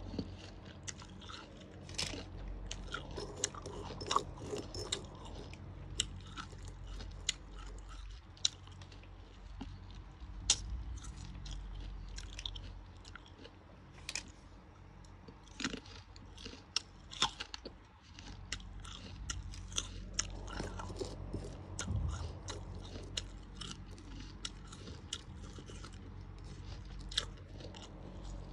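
Close-up of a person biting into and chewing crisp jujube fruits: irregular sharp crunches with wet chewing in between.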